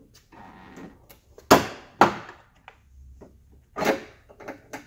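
Plastic knocks and clicks as a 1998 Toyota Tacoma's side marker light is pushed out of its mounting: two sharp knocks about half a second apart a second and a half in, then a few lighter taps near the end.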